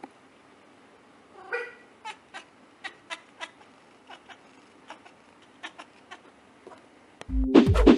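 A Siamese cat gives one short meow about a second and a half in, followed by a scatter of faint light clicks. Near the end, loud music with a whoosh cuts in.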